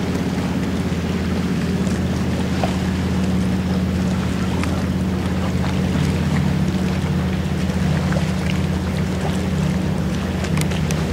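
Boat engine running at a steady speed, a low even hum over a haze of wind and water noise.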